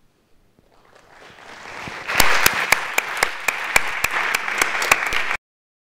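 Audience applauding: the clapping swells over the first two seconds, carries on strongly with sharp individual claps standing out, then cuts off abruptly about five seconds in.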